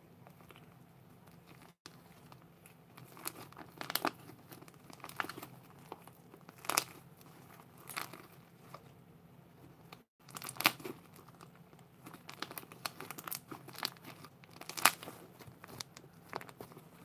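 Hands squeezing, stretching and pulling apart a lump of white fluffy slime, making irregular crinkly crackles and tearing sounds. The crackles come thicker from about three seconds in.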